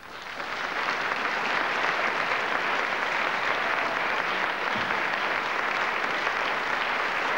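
Audience applauding, the clapping swelling in over the first second and then holding steady.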